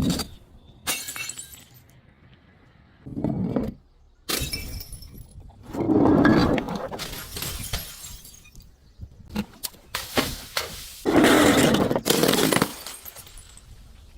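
Glass bottles being broken: a series of crunching, shattering crashes with tinkling shards, the two loudest about six and eleven seconds in.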